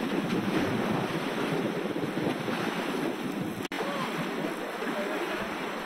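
Sea waves washing in under wind buffeting the microphone, a steady rushing noise, broken by a momentary drop-out a little past halfway.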